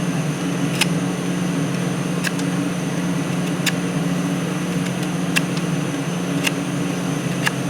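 Steady low machine hum, like a fan, with about six short, sharp light clicks spread through it, roughly one every second or so.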